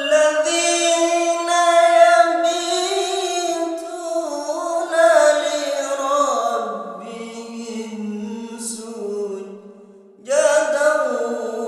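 A single reciter chanting the Quran in melodic tajweed style, drawing out one long, ornamented phrase that sinks gradually in pitch. There is a short breath about ten seconds in before the next phrase begins.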